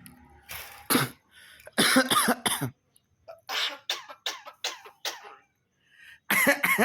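Repeated coughing, short sharp coughs in quick clusters of two to six with brief pauses between them: the cough sound a jalak kebo (Javan myna) is being trained to imitate.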